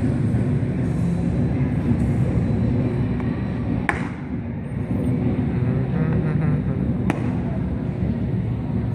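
Steady low rumble of background noise, with two short sharp clicks, one about four seconds in and one about seven seconds in.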